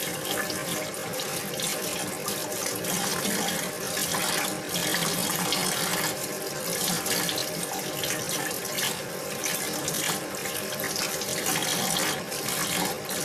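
Tap water running into a stainless-steel sink, splashing as leeks are rinsed and handled under it, with irregular splashes and rustles over a steady rush.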